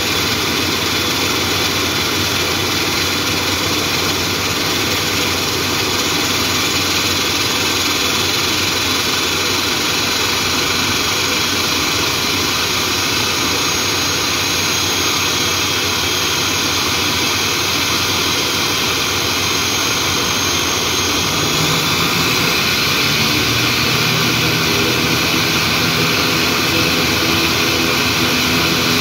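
ATR 42-500's right-hand Pratt & Whitney PW127 turboprop spooling up during engine start: a steady turbine whine while the six-blade propeller speeds up. About three quarters of the way through, the whine's pitch shifts and a low propeller beat comes in, and the sound gets a little louder.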